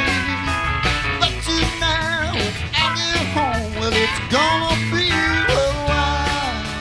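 Live country-rock band playing an instrumental passage: pedal steel guitar with sliding notes over electric guitar, bass and drums.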